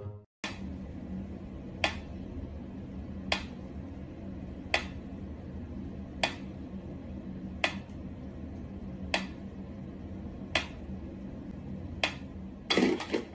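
Sharp, evenly spaced clicks, one about every second and a half, over a steady low hum, with a louder burst of noise near the end.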